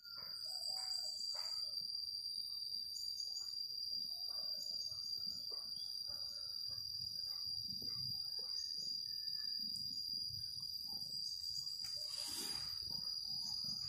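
Outdoor rural ambience: birds chirping in short, scattered calls over a steady high-pitched tone. Near the end there is a brief rustling hiss.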